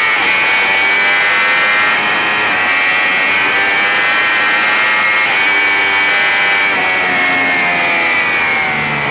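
Sportbike engine at high revs under hard acceleration, shifting up through the gears several times, with a steady rush of wind noise over the onboard camera's microphone at high speed. Near the end the engine note begins to drop.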